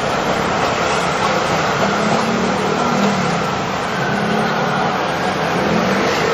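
Wok over a high gas burner flame: a steady, loud roar of the burner mixed with the sizzle of chilies and green onion frying in hot oil.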